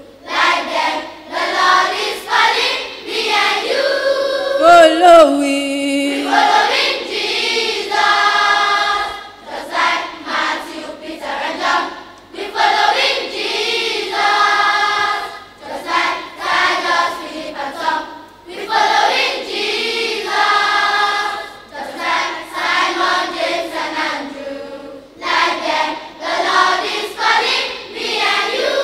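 Children's choir singing a gospel song in short sung lines with brief breaks between them.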